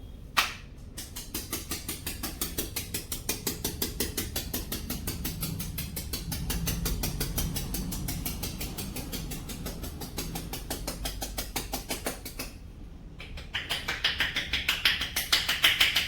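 Rapid, even percussive tapping of a head massage: one sharp click, then a quick run of strikes, several a second, for about eleven seconds. After a short pause, a louder, brighter run of strikes near the end.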